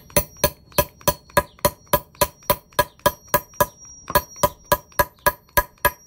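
Hammer repeatedly striking a metal grommet flare tool seated on its base, clinching a grommet and washer together through fabric. Rapid, steady blows about four a second, each with a short metallic ring.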